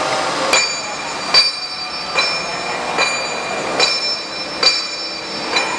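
UE 460DSA metal-cutting band saw cutting through a large solid round metal bar: a steady metallic hiss and ringing squeal of the blade in the cut. A sharp ringing tick comes about every 0.8 seconds.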